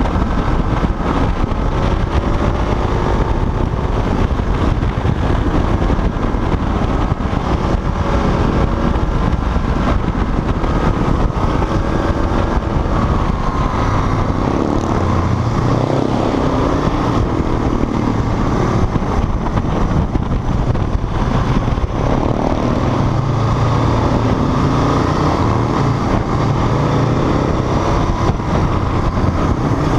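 Motorcycle engine running at road speed with heavy wind rush over the microphone. The engine pitch rises and falls as the throttle is opened and closed through the bends.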